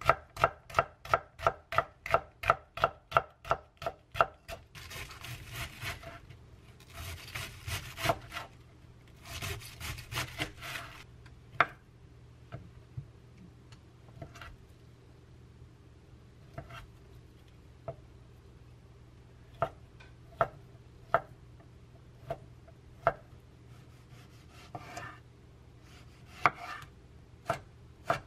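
Chef's knife chopping on a wooden cutting board: a quick, even run of strokes, about four a second, for the first few seconds, then a few seconds of denser rasping cuts, then slower single knocks spaced out by a second or so.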